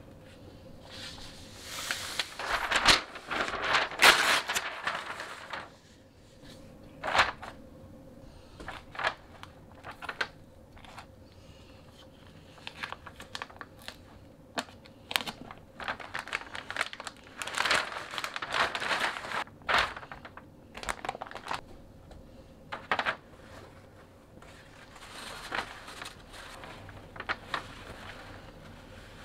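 Close-up food-prep handling sounds: crinkling and rustling of paper and plastic wrap with scattered sharp taps and clicks, loudest about two to five seconds in, as a raw skin-on pork shoulder is unwrapped and patted dry with paper towels.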